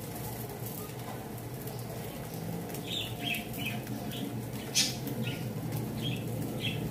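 Hands patting and flattening a small ball of arepa dough between the palms, soft pats about twice a second starting partway in, with one sharp click about two-thirds of the way through.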